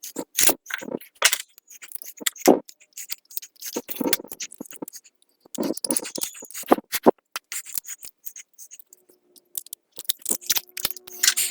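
Small metal SU carburettor parts and tools being handled during reassembly, giving irregular clicks, taps and scrapes, with a short lull past the middle.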